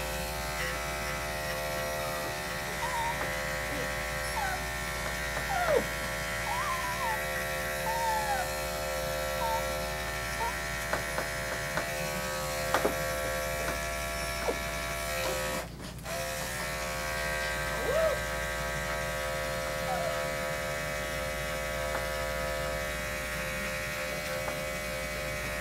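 Andis Excel 5-speed electric dog clipper running with a steady hum while it trims a Maltese's coat. The hum drops out for a moment about sixteen seconds in. A few brief high squeaks sit over it, the loudest about six and eighteen seconds in.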